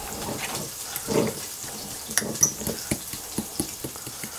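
Guacamole being mashed and stirred in a glass bowl: wet squishing with irregular clicks and taps of the utensil against the glass.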